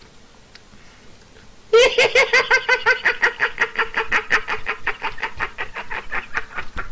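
A man laughing in a long, high-pitched run of quick pulses, about seven a second, starting about two seconds in.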